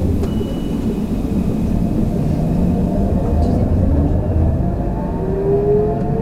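Alstom Citadis 302 tram running, heard from inside: a steady low rumble, with a rising whine from the traction motors starting about five seconds in as it picks up speed.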